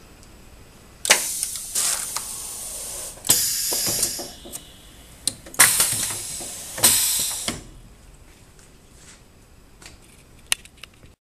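MPS TF-100 stencil and screen printer running a contact print cycle: several loud bursts of hissing air with clunks and clicks from its actuators and moving print table, the first about a second in and the last two around six to seven seconds in. A few light clicks follow near the end.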